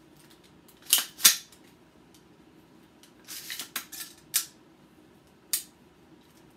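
A carbine's action being worked by hand to reset the trigger for the next dry-fire repetition. Two sharp metallic clacks come about a second in, then a run of smaller clicks and rattles and two more single clicks.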